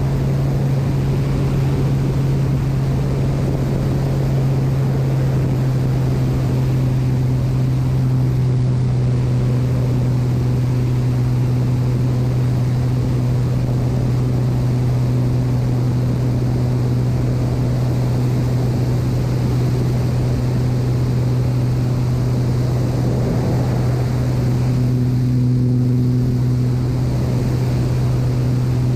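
Agricultural spraying aircraft's engine and propeller running at a steady cruise in low-level flight, heard close up from on top of the engine cowling: a strong, unchanging low drone over a haze of rushing noise, with a fainter higher tone that swells a little a couple of times.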